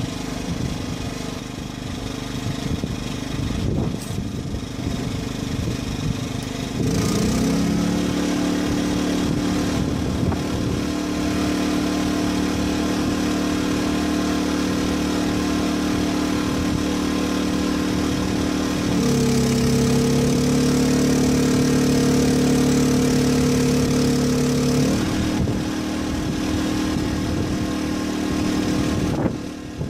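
Small portable generator engine running, its speed stepping up about seven seconds in, shifting higher again about nineteen seconds in, and settling back down about twenty-five seconds in.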